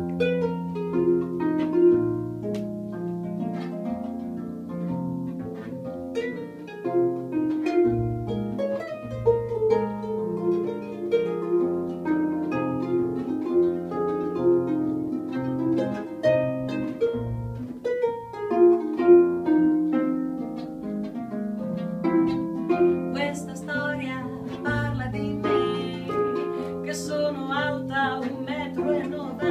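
Instrumental intro of a blues song played on plucked string instruments, with a walking bass line under picked melody notes.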